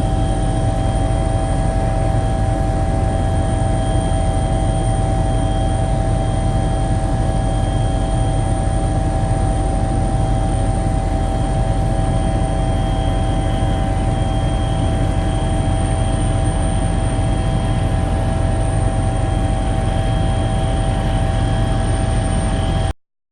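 Steady engine drone with a heavy low rumble and a few constant whining tones, unchanging throughout, cutting off abruptly near the end.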